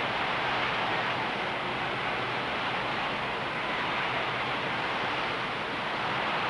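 Steady arena crowd noise, an even wash of sound with no single event standing out, carried on an old, hissy fight-film soundtrack.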